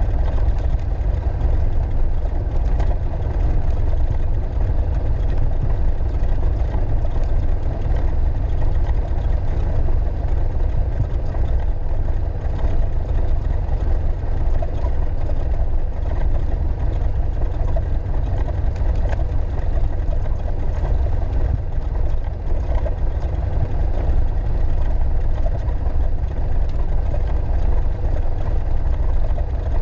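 Piper Archer's four-cylinder Lycoming engine and propeller running steadily at low taxi power, heard from inside the cabin as an even, low drone.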